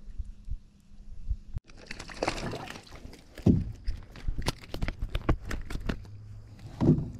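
A quick run of sharp clicks and knocks from a just-caught small largemouth bass and the fishing rod being handled in a canoe, with a few duller thumps among them.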